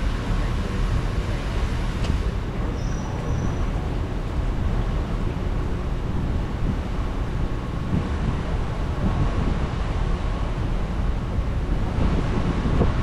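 Steady low rumble and hiss of a ride boat gliding through a greenhouse, with a faint steady hum.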